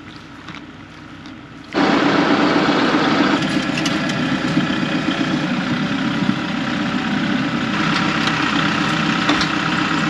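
Tractor engine running steadily, heard close up from the tractor. It cuts in abruptly about two seconds in, after a quieter start.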